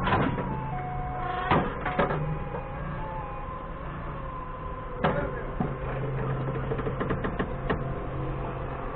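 Doosan 4.5-ton forklift engine idling with a steady low hum. Sharp metal clanks come from the car lift's chains and frame as a worker handles the slings: a few single knocks in the first two seconds and another about five seconds in, then a quick run of small rattling clicks near the end.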